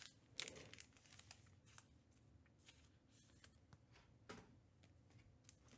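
Faint, scattered rustles and clicks of trading cards and pack wrappers being handled, the loudest about half a second in.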